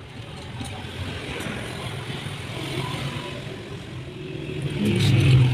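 Engine running steadily, growing louder about five seconds in.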